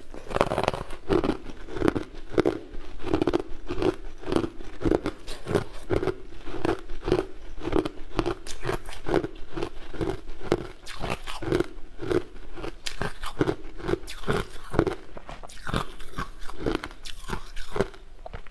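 Close-up mouth chewing and crunching ice, a steady run of crunches about two a second.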